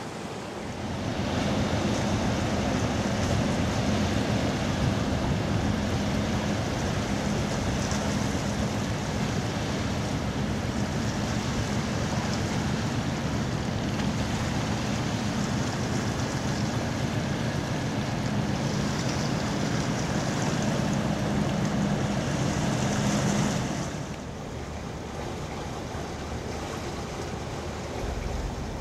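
Steady engine drone of a small river cargo boat passing close, with the rush of its bow wave along the hull. The drone falls away about 24 seconds in, leaving quieter water noise.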